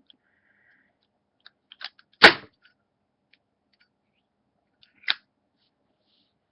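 Zippo lighter handled, metal on metal: a few small clicks, then a loud sharp metallic clack about two seconds in, and another sharp click about five seconds in.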